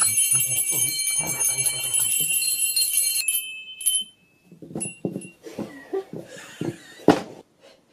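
Several small handbells ring together for about three seconds, then stop abruptly. After that come a few single short rings and the clunks of bells being fumbled on a table, with one loud knock about seven seconds in.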